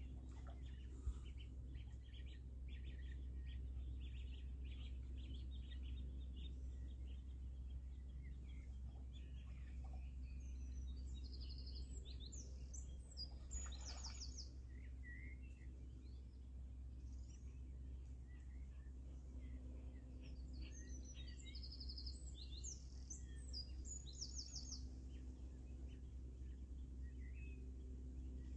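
Small birds chirping and singing over a steady low background hum. Quick repeated chirps come early, and a longer song phrase with fast high trills comes twice, about eleven and twenty seconds in.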